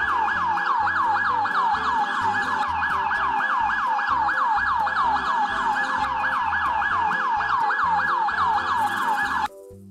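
Battery-operated toy police motorbike's electronic siren, a fast wail repeating about four times a second, cutting off abruptly just before the end.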